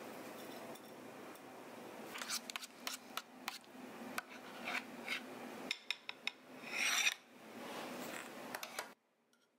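Metal spoon clicking and scraping against a small stainless steel tin and a plate as a thick white sauce is stirred, scooped and spread, with one longer, louder scrape about seven seconds in. A steady low hum runs underneath and cuts off suddenly near the end.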